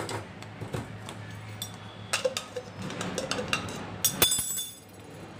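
Glass bowl and wire whisk clinking and knocking against a saucepan as the last of the ground bread crumbs are tipped into thick custard: a run of sharp clinks, some briefly ringing, loudest about two and four seconds in.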